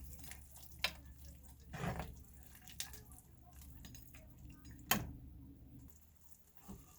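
A few scattered kitchen clinks and knocks from utensils and dishes, the loudest about five seconds in, over a low steady hum that stops about a second before the end.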